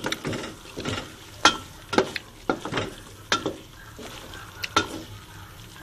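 Stirring chayote strips in tomato sauce in a hot pan: a utensil scraping and clicking against the pan at an irregular pace, over a soft sizzle. The dish is half cooked.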